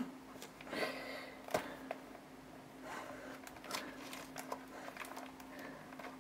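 Faint rustling and handling of sheets of paper being leafed through, with a few light taps and crinkles, over a faint steady hum.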